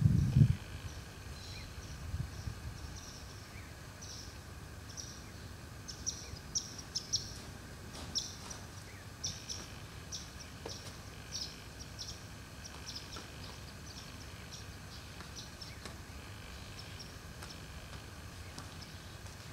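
Small birds chirping in quick, short high notes, busiest in the middle stretch, over a faint steady outdoor hiss. A brief low rumble sounds right at the start.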